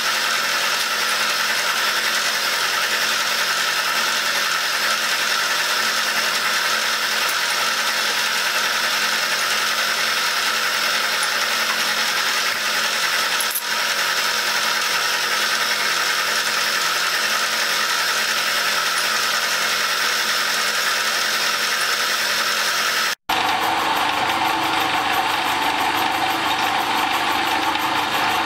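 Milling machine running steadily, its end mill cutting bronze. About 23 s in the sound breaks off for an instant and resumes with a lower, fuller tone.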